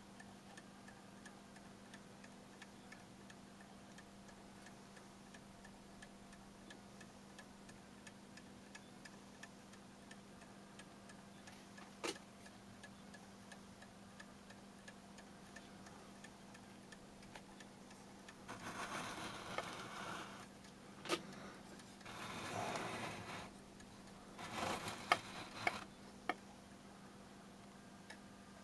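Restored Brocot French clock movement, freshly cleaned and rebushed, ticking steadily and faintly under a low steady hum. From about two-thirds of the way through come several patches of rustling with a few sharp clicks.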